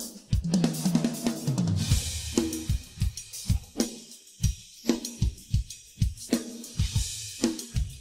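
Solo drum kit playing, with no other instruments: a tom fill that steps down in pitch, landing on a crash cymbal about two seconds in, then a groove of kick, snare and hi-hat, with another cymbal crash near the end.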